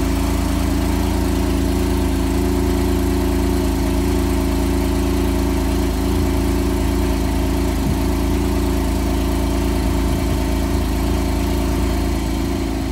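Porsche 911 Carrera 4S (991.1) 3.8-litre naturally aspirated flat-six running on its standard non-sport exhaust, holding a loud, steady cold-start fast idle. Near the end it eases slightly as the idle begins to settle.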